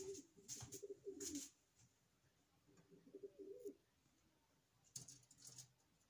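Faint pigeon cooing in low, wavering phrases: one through the first second and a half, another around three seconds in. A few brief scratchy noises come in between, at the start and about five seconds in.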